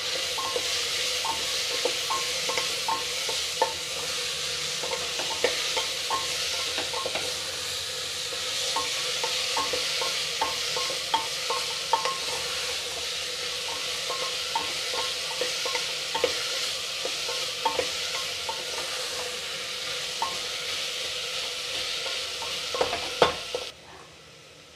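Chopped vegetables frying in an aluminium pressure cooker: a steady sizzle with frequent light clicks and scrapes of a spatula against the pot as they are stirred. Near the end comes a louder clack, then the sizzling cuts off suddenly.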